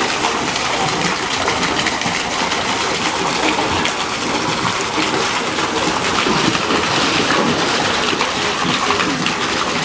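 A jet of water from a pipe splashing steadily into a shallow pool.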